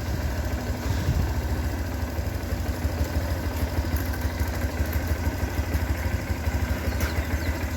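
A vehicle engine idling steadily, a low, even chugging.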